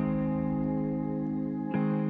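Background music: soft instrumental chords, each held for about a second or two, with a new chord coming in near the end.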